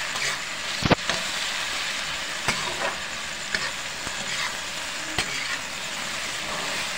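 Chopped okra with onion and tomato sizzling in hot oil in a pan while being stirred, the spoon scraping and knocking against the pan a few times, the loudest knock about a second in.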